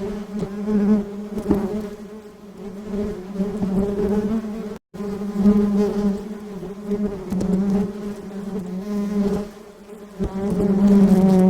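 Honeybees buzzing: a steady hum that swells and fades in loudness, cutting out completely for a split second about five seconds in.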